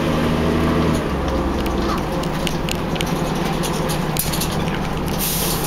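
Volvo Olympian double-decker bus heard from the upper deck while under way: a diesel engine drones, and windows and fittings rattle. The engine note shifts about a second in, and there is a short hiss near the end.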